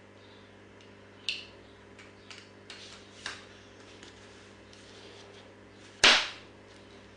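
Chunky plastic toy pieces clicking and knocking together as they are handled, a few light knocks spread out and one much louder knock about six seconds in.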